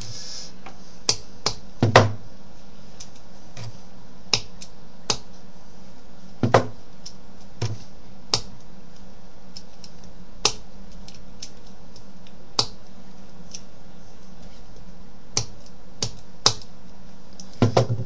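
Bump key in a 5-pin cylinder lock being struck: sharp metallic taps at irregular intervals, about fifteen in all, a few louder than the rest, as the pins are knocked toward the shear line without the lock opening.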